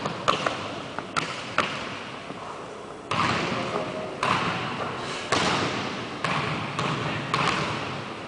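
Basketball bouncing on a hardwood gym floor: several quick bounces in the first second and a half, then slower single bounces about once a second, each ringing out with a long echo in the large hall.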